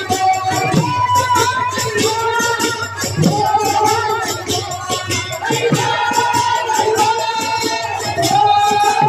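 Sambalpuri ladies' kirtan: women singing a devotional melody in long held phrases through microphones and a PA, over a fast, steady beat of drum and jingling percussion.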